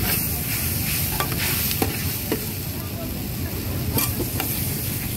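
Food sizzling in hot oil as it is stir-fried, with scattered sharp clicks and scrapes of a metal utensil against the pan. A steady low rumble runs underneath.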